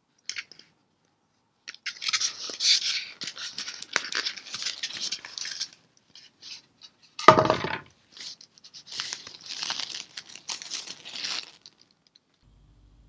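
Soft non-woven fabric wrapping rustling and crinkling as it is pulled from around a resin bust lifted out of polystyrene foam packaging, in two long stretches of handling. A loud dull thump a little past the middle.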